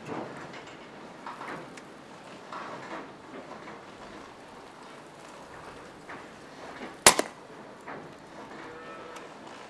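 Single sharp shot from a moderated Daystate Red Wolf PCP air rifle about seven seconds in, followed a split second later by a smaller smack of the pellet striking a rat.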